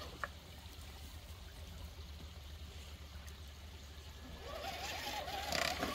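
Shallow creek water trickling over rocks. Near the end an RC rock crawler's electric motor whines up in pitch, holds and drops back as the truck is driven.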